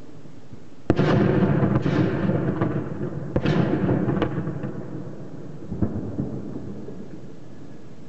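Heavy explosions: a loud, sharp blast about a second in sets off a long rolling rumble. Further sharp cracks come about three and a half and six seconds in, and the rumble dies away near the end.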